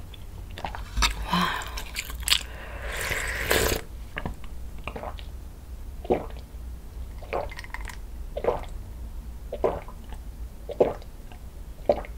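Close-miked slurping of hot broth from a ladle, then gulping water from a glass, with a swallow about every second.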